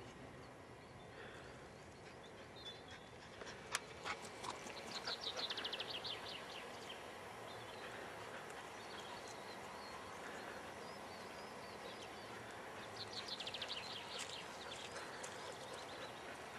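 Faint open-air ambience with a songbird's rapid descending trill twice, about five seconds in and again near the end, and a single sharp click just before the first.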